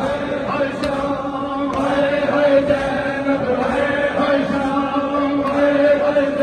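Large crowd of men chanting a noha, a Shia mourning lament, in unison, with a faint beat about once a second.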